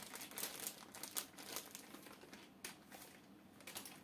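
Clear plastic bag crinkling as hands open it and pull small parts out, in an irregular run of crackles.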